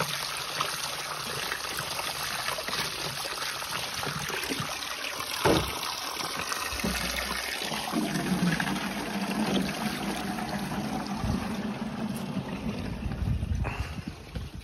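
A fast stream of water from a pipe spout pouring into a plastic jerrycan, splashing as the can fills; the flow is strong from accumulated rainwater. One loud knock about a third of the way through.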